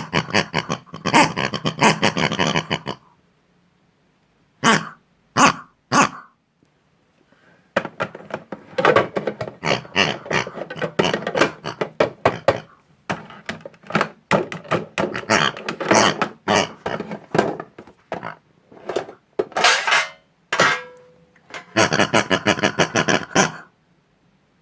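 Pig-like character vocalisations, oinking and grunting gibberish in quick bursts, with short pauses about 3 and 7 seconds in.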